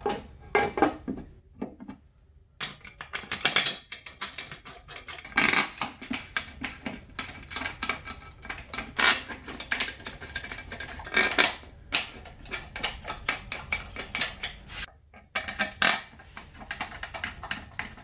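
Metal clicking and clattering as an aluminium snowmobile chaincase cover is handled and fitted onto the chaincase, coming in bursts of quick rattling clicks with a short pause near the end.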